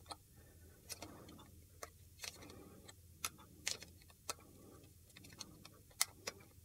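Faint, irregular clicks and ticks of stiff paper being handled: fingers pressing a die-cut cardstock border onto adhesive tape along a curved paper cuff.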